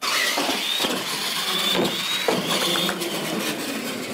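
Radio-controlled monster truck launching hard off the start line and running flat out, a loud whirring rush with a high drivetrain whine and a few knocks in the first couple of seconds.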